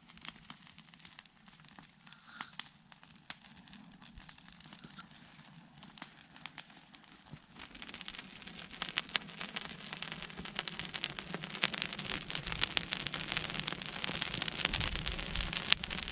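Smoke-signal fire crackling: sparse pops at first, then from about halfway through a much denser, louder crackle as the fire flares up.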